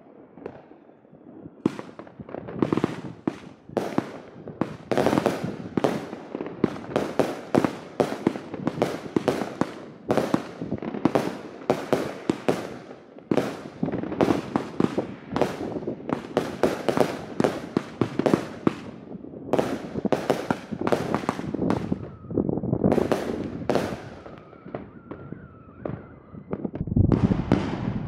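VOLT! Pryzm 20-shot firework battery firing shot after shot: sharp bangs of the tubes launching and their shells bursting, in quick succession. They thin out with a short lull, then a louder, deeper series of bangs comes near the end.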